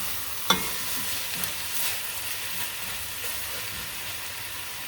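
Shredded boiled chicken sizzling in a pot of sautéed garlic and onions, with a steady frying hiss. A utensil clinks sharply against the pot about half a second in, with a few softer knocks after.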